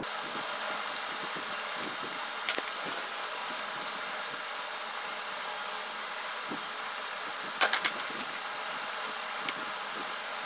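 A small screwdriver working the screws out of a plastic remote control's battery cover: light clicks and ticks, with two sharper ones about two and a half seconds in and again near eight seconds, over a steady background hiss.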